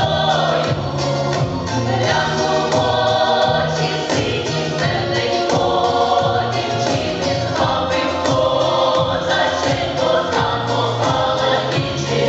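Mixed women's and men's folk vocal ensemble singing a Ukrainian folk song in harmony, over an accompaniment with a steady low bass line that moves every second or two.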